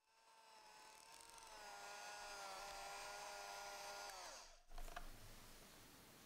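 Electric hand mixer running, its twin beaters whipping stiff chocolate ganache in a glass bowl. The steady motor whine slides down in pitch and stops about four seconds in, and a knock follows.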